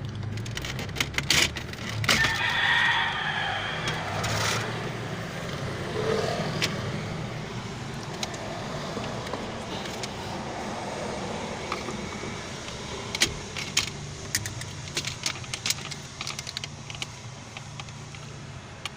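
Scattered clicks and light rattles of hand work on a car's wiring, over a steady low hum.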